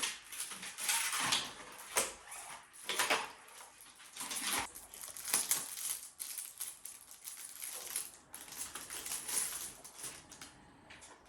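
Hands handling small hard plastic and metal parts, likely the old hard drive and its external USB enclosure: irregular clicks, taps and rattles with scraping and rustling.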